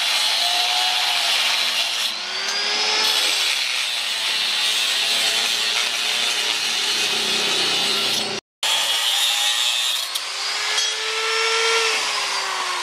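Electric angle grinder with an abrasive cut-off disc cutting through steel square tubing: a loud, harsh grinding hiss over the motor's whine, which sags and recovers as the disc bites. The sound breaks off for an instant about eight seconds in, and near the end the whine falls away as the grinder is released and spins down.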